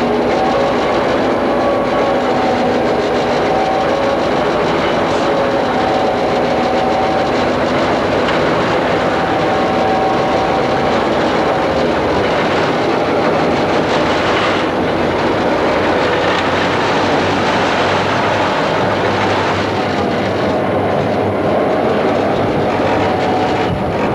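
EMD GP-9 diesel-electric locomotive's 16-cylinder 567 two-stroke diesel engine running, loud and steady from inside the cab, mixed with the rumble of the train on the rails.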